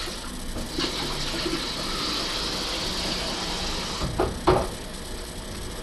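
Water running into a coffee machine's water tank as it is filled for about three seconds. Two sharp knocks follow near the end.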